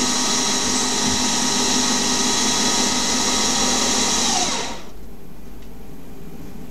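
Hercus PC200 CNC lathe spindle running at 3000 rpm with a steady high whine during a screw-cutting pass on a brass part. About four and a half seconds in the whine falls away as the spindle slows, leaving a quieter low hum.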